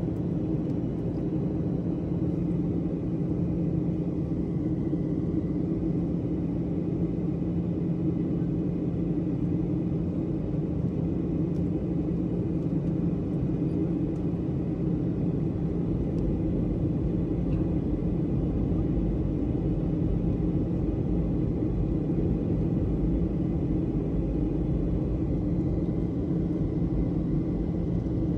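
Steady vehicle rumble with a constant low hum running through it.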